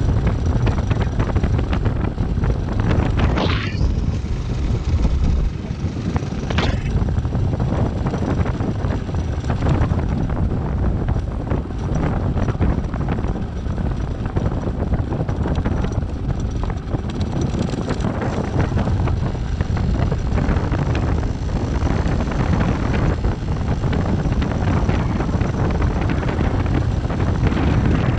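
Motorcycle running at riding speed, its engine noise mixed with heavy wind buffeting on the microphone.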